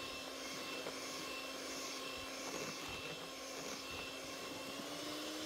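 Electric hand mixer running at medium speed, its beaters whisking an egg and sugar batter: a steady motor hum whose pitch creeps up slightly near the end.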